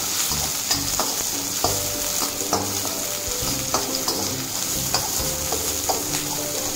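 Chopped shallots sizzling in hot oil in a metal kadai while a perforated metal ladle stirs them. The ladle scrapes and knocks against the pan at irregular strokes, about once a second, and each knock rings briefly.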